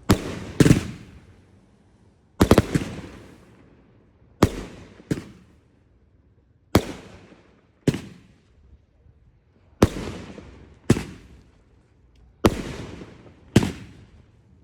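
Fireworks exploding: about eleven loud bangs, often in close pairs, coming every second or so, each fading away in a crackling hiss.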